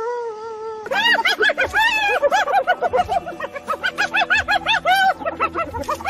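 Spotted hyena calling: one held call for about the first second, then a fast run of short rising-and-falling notes, about four or five a second, which is the hyena's giggling 'laugh'.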